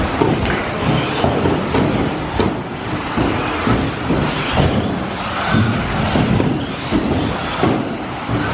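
Electric 1/10-scale RC buggies racing on an indoor track: steady running noise with frequent clattering knocks from the cars landing and hitting the track.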